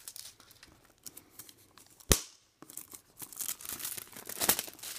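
Tape and clear plastic wrap being peeled off a cardboard headphone box and crinkled in the hand. Scattered small clicks come first, then one sharp click about two seconds in, then crinkling that gets louder and denser over the last two seconds.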